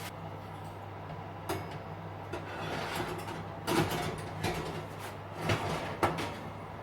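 A lidded pot being slid into an oven, with several short clanks and scrapes against the oven rack over a steady low hum.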